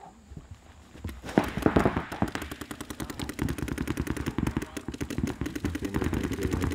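Several paintball markers firing rapid streams of shots at once, a dense, continuous crackle of pops that starts about a second in and keeps going.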